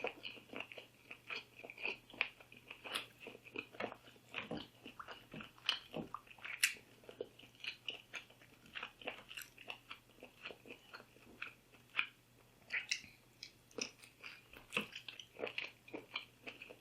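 Close-miked chewing and biting of food, many small wet clicks and crunches in an uneven rhythm.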